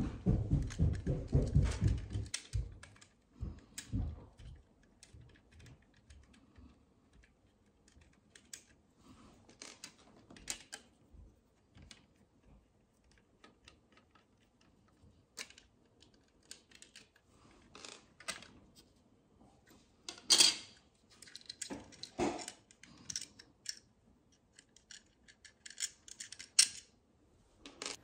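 Screwdriver working the screws of a plastic wall outlet: scattered light clicks and taps of the metal tip in the screw heads and the outlet being handled. A denser stretch of clatter in the first two seconds, and a sharper click about twenty seconds in.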